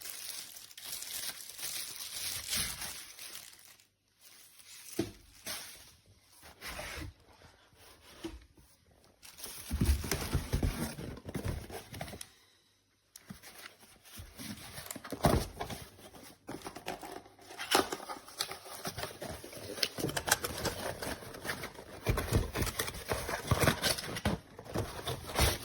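Product packaging being unpacked: plastic and paper crinkling and tearing in irregular rustles, with a few dull knocks of parts being handled and short pauses.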